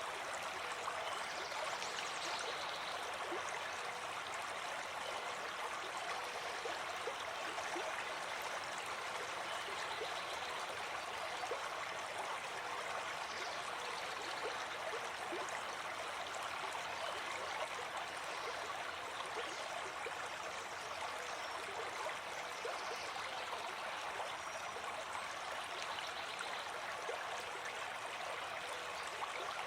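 Running water: a steady, even splashing and burbling of water flowing without pause.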